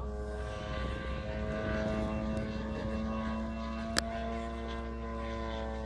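Radio-controlled model airplane's motor and propeller droning steadily in flight, one even tone with a slight waver. A single sharp click about four seconds in.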